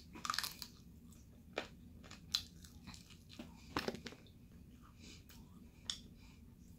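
Crispy fried chicken wing being bitten and chewed close up. The coating makes short crunchy crackles in irregular clusters, strongest in the first second and around four seconds in.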